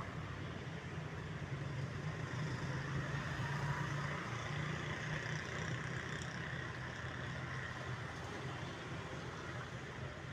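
A steady low hum under an even hiss.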